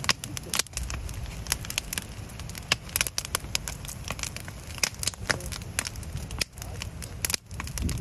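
Wood campfire crackling, with many irregular sharp snaps and pops from the burning logs. A steady low rumble of wind on the microphone runs underneath.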